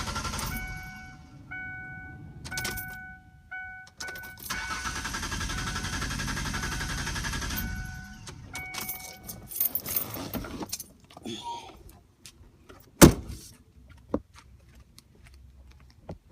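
The 2002 Ford Explorer Sport Trac's starter cranks the engine twice, about three seconds the second time, without it catching: a no-start that the owner puts down to a failed fuel pump. Between the attempts a warning chime beeps. Near the end come a series of clicks and one loud thump.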